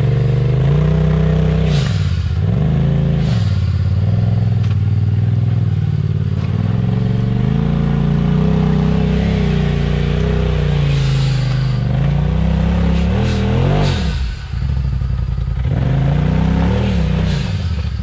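Side-by-side UTV engine revving up and down under load while rock crawling. The revs fall away and climb again several times, most deeply about two, three and fourteen seconds in, with a few clanks and scrapes from the machine working over rock.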